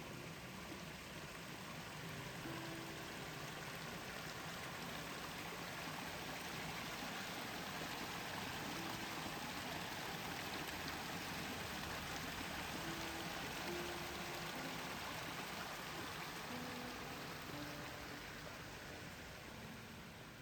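Steady rain, an even hiss that swells a little after a couple of seconds and eases off near the end, with a few faint, short low tones scattered underneath.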